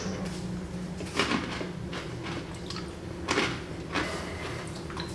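A few short, soft clicks and rustles of small sweets being picked over by hand, the clearest about a second in and about three and a half seconds in, over a steady low hum.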